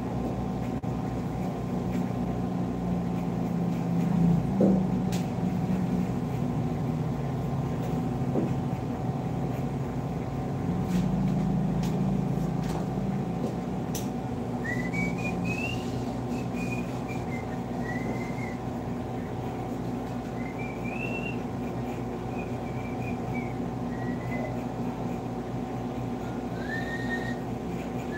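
A steady electrical hum runs throughout. About halfway through, someone starts whistling a wandering tune in short rising-and-falling phrases.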